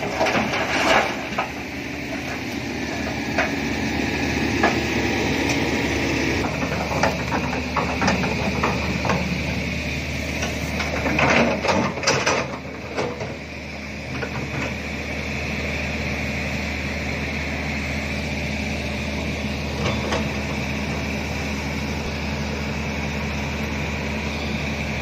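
Diesel engines of hydraulic excavators running steadily under load while they push and lift an overturned dump truck, with sharp metal clanks and knocks from bucket and chain, most of them near the start and again about halfway through.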